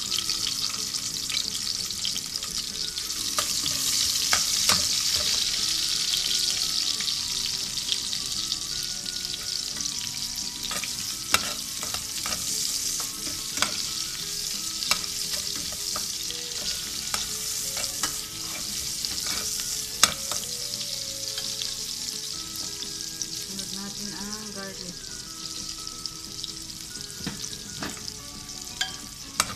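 Sliced red onions sizzling in hot oil in a stainless steel pot, with a steady high hiss. They are stirred now and then, giving a few sharp clicks of the utensil against the pot.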